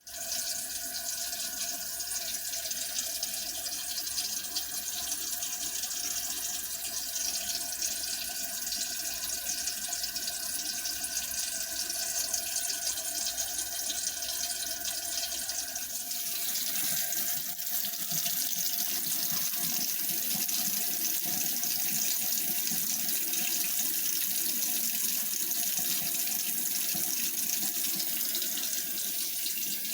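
Water running steadily from a faucet into a sink. About halfway through, the rush changes and becomes brighter and slightly louder.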